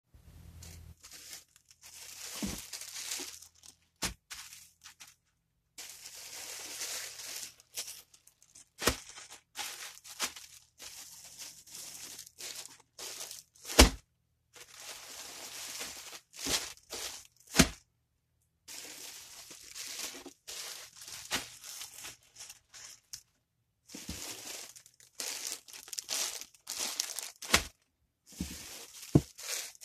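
Clear plastic polybags crinkling and rustling as packaged clothing is handled, in stretches with short pauses, punctuated by several sharp taps and thuds, the loudest about halfway through.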